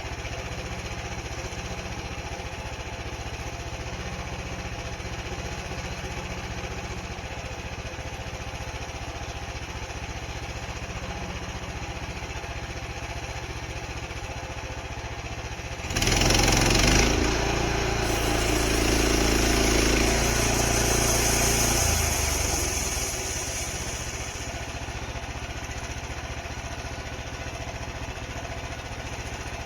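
Small gas engine of a portable band sawmill running steadily, then rising sharply about halfway through into a louder run for about seven seconds, with a hiss over it, before dropping back to its steady run.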